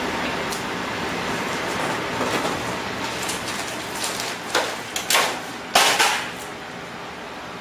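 A plastic shopping bag rustling and crinkling as it is handled. There are several loud crackles between about four and a half and six seconds in, over a steady background hiss.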